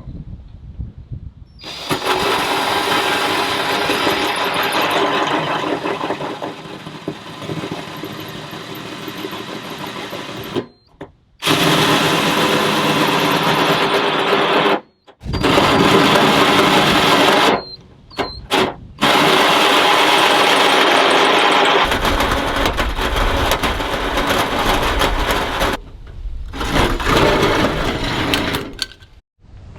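Power tool cutting through the sheet-metal front guard for a snorkel hole, running loudly in long stretches. It stops abruptly and restarts several times.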